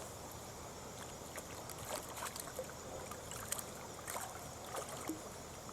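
Faint running river water with scattered small splashes and light knocks.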